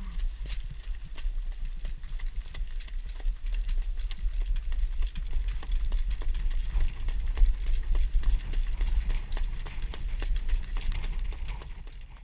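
Standardbred harness horse's hooves striking the dirt track in a quick, steady beat, heard from the sulky seat, over a low wind rumble on the microphone.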